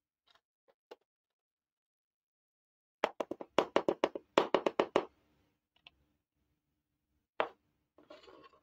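Small plastic toy pots clicking and knocking as they are handled: a quick run of about a dozen sharp clicks lasting about two seconds, then a single knock as a toy pot is set down on the plastic toy stove, and a brief scrape near the end.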